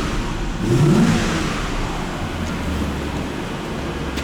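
Audi V8 engine idling steadily with the air conditioning on and no belt squeal: the serpentine belt, whose tensioner has just been lubricated so the belt no longer slips, now runs quietly.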